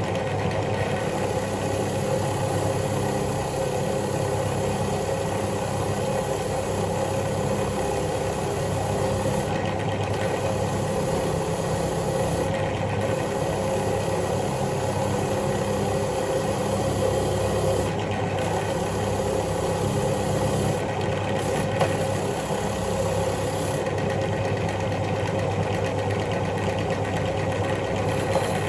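Electric wire wheel running steadily while a rusty bolt is held against it and brushed clean, the scratching hiss on top of the motor hum breaking off briefly a handful of times as the bolt is lifted away and turned.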